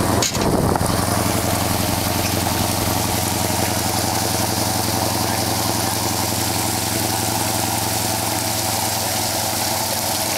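Fishing boat's engine running steadily: an even, unchanging drone with a steady hiss over it, and a brief knock just after the start.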